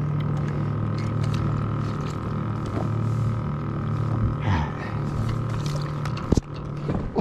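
Minn Kota Endura electric trolling motor running with a steady hum, with a sharp knock about six seconds in.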